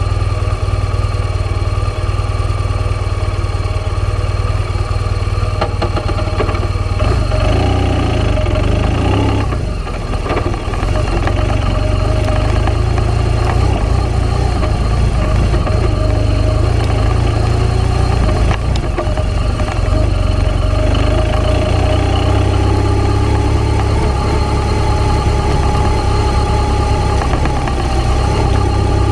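Motor vehicle engine running steadily while driving along a bumpy dirt track, its pitch wavering with speed and easing off briefly about ten seconds in, over a constant heavy low rumble of wind on the microphone.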